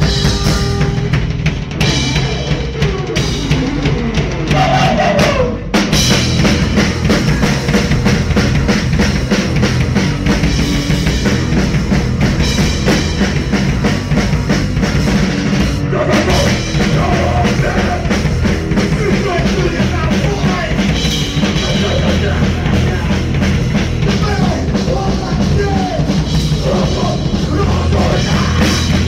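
Crust punk band playing live: distorted bass and guitar over a drum kit, loud throughout, with a brief break about six seconds in.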